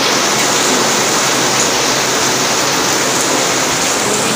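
Heavy rain falling steadily: a loud, dense, even hiss of rain on the ground and the surfaces around.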